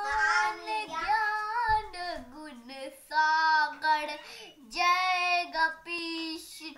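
A young boy singing alone, with no accompaniment: several short sung phrases of held notes that slide up and down in pitch.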